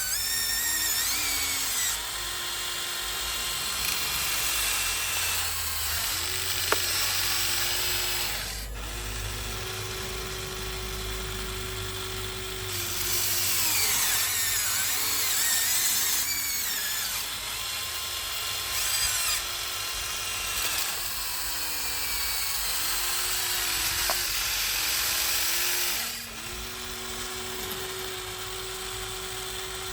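Huina 1593 RC excavator's small electric motors whining as it digs and swings. The whines start and stop over and over and slide up and down in pitch as each function speeds up and slows down, with a couple of faint clicks.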